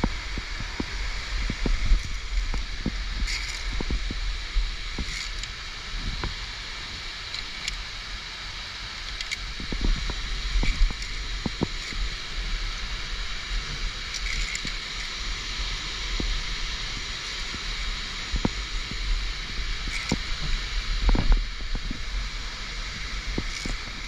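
Waterfall rushing steadily close by, with frequent sharp clicks and knocks of via ferrata carabiners and gear against the steel cable and rock, and a low rumble of wind and handling on the microphone.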